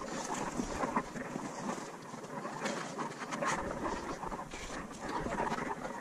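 Close, irregular scuffing and rustling of a climber's hands, sleeves and nylon webbing sling against granite rock, with a few sharper scrapes.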